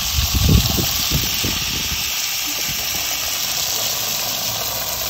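Garden hose spraying water onto a dirt bike's swingarm and rear wheel: a steady hiss of spray. A few low thumps and rumbles in the first two seconds.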